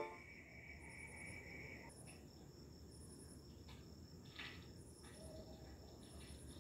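Near silence with faint, very high insect chirping: short pulsed chirps repeating about once a second.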